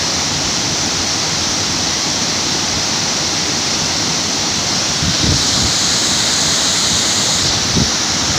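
Waterfall rushing: a loud, steady roar of falling water, with brief low wind buffets on the microphone about five and eight seconds in.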